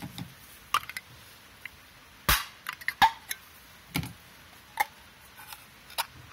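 Sharp metallic clicks and snaps from a ring-pull metal can being worked open by hand, about six of them spread out, the loudest pair a little past two and three seconds in, with the lid pulling free near the end.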